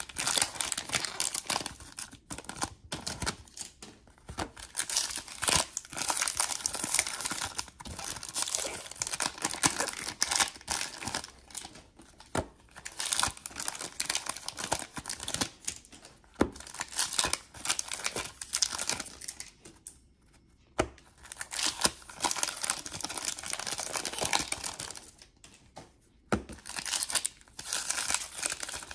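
Rustling and crinkling of 1991-92 Fleer basketball trading cards being handled and sorted through a stack, in irregular spurts with a couple of brief pauses, one about two-thirds of the way through and one near the end.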